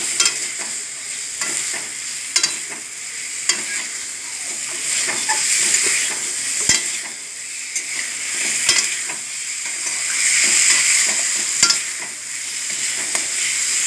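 Boiled eggs and potato pieces sizzling as they fry in oil and spice paste, a metal spatula stirring them and scraping and clicking against the pan again and again. This is the stage of frying the vegetables and eggs in the cooked-down masala.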